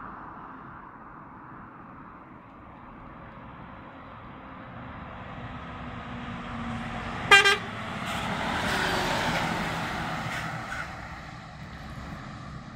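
Articulated lorry approaching and passing close by, its engine and tyre noise rising to a peak and then fading. About seven seconds in, two short, loud horn toots.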